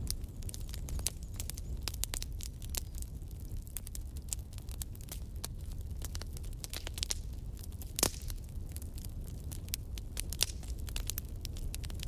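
Fireplace fire crackling: frequent irregular sharp pops and snaps over a low steady rumble of the flames, with one louder pop about eight seconds in.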